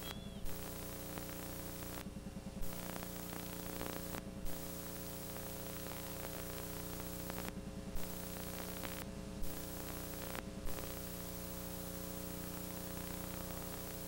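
Faint steady hiss and electrical hum from the recording's noise floor, with no program sound. Several times the hiss briefly cuts out with a small thump.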